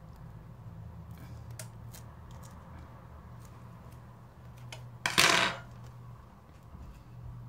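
Small hard clicks of a phone's glass digitizer being prised away from its LCD, then a loud, brief clatter about five seconds in.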